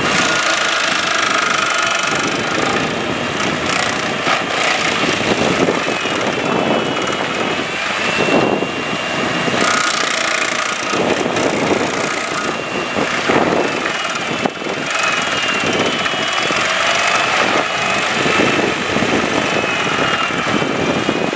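Bandit stump grinder running under load as its cutter wheel grinds into a tree stump, chewing the wood into chips. A steady engine noise with a whine that rises and falls as the wheel is swept back and forth across the stump.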